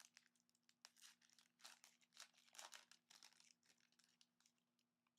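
Faint crinkling and tearing of trading-card pack wrappers being opened by hand, in irregular bursts of crackle that thin out near the end.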